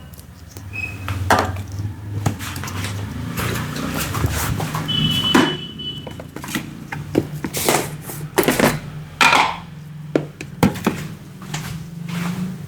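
Hands massaging a head and face: irregular rubbing swishes on skin and hair, mixed with sharp pats and slaps, over a steady low hum.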